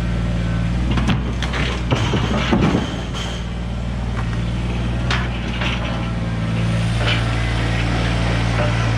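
Kubota BX24 compact tractor's three-cylinder diesel engine running steadily, with several sharp knocks and cracks of wood about one to three seconds in as the loader works a log.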